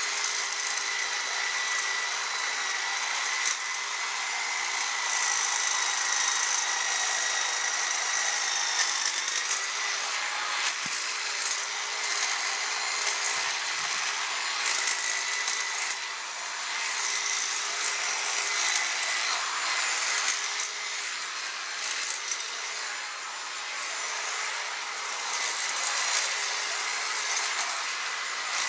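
Electric hedge clippers running and trimming a hedge: a steady high whine over a dense buzzing rasp, the loudness wavering as the blades cut through the twigs.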